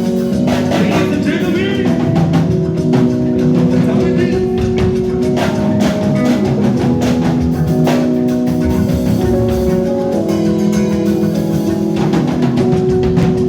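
Live band playing: a drum kit keeping time under held melodic notes from guitar or keyboard.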